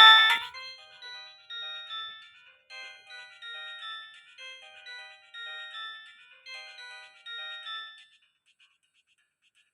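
Nokia 1265 mobile phone playing its ringtones from its own speaker: a loud tune cuts off about half a second in, then a quieter melody of short beeping notes plays and stops about eight seconds in.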